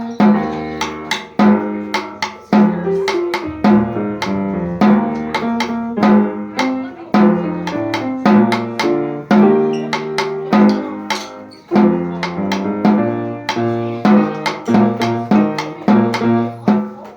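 Snare drum playing rhythmic strokes over a pitched melodic accompaniment, as an ensemble piece runs on.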